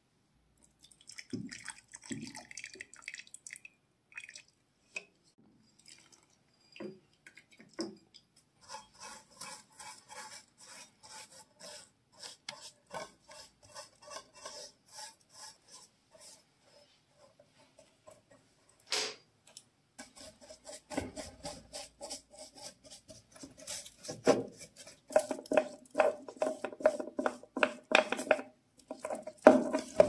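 A bristle brush dabbing and scrubbing paint stripper onto a small metal lighter part laid on aluminium foil. A few taps early give way to a long run of quick scratchy taps, with one swish partway through. The scrubbing becomes denser and louder over the last third.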